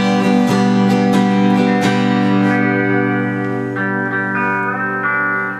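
Guitar played live, notes picked one after another and left ringing in an instrumental passage.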